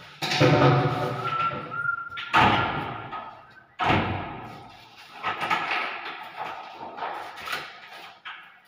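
A newly installed toilet door being opened and shut, with three loud thuds and slams about a quarter second, two and a half and four seconds in, and a short squeak between the first two.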